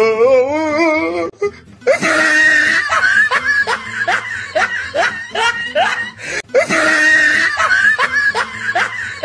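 A laughing sound effect over music. A wavering held note opens it, then from about two seconds in comes a fast run of rising 'ha' syllables, about three a second, and the same stretch of laughter plays a second time.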